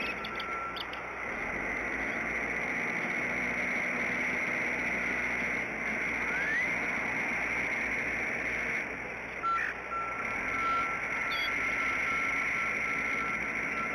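Steady outdoor hiss picked up by the nest-cam microphone, with a brief rising chirp about six and a half seconds in and a thin steady tone in the last few seconds.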